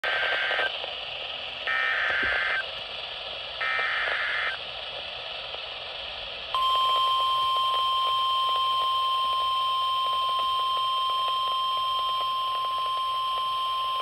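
NOAA Weather Radio emergency alert from a Midland weather radio's speaker: three short bursts of SAME header data, each under a second and about a second apart, over radio hiss; then, about two seconds after the last, the steady 1050 Hz warning alarm tone starts and holds. The header and alarm tone announce a severe thunderstorm warning.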